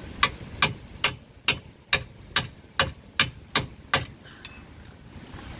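Hammer tapping on a socket held against the new ball joint of a Nissan Juke's lower control arm (wishbone), driving it into place. About ten sharp, evenly spaced metal strikes, a little over two a second, stopping about four seconds in.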